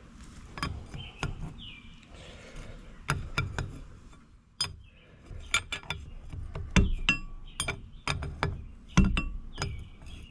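Hand tools clinking against a steel hydraulic hose fitting: irregular sharp metal clinks, some ringing briefly, as the fitting is worked on.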